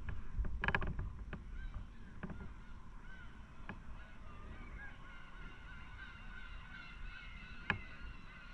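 Many birds calling at once: short, bending calls that overlap more and more after about two seconds, over a low rumble. A louder harsh call comes about a second in, and a sharp click near the end.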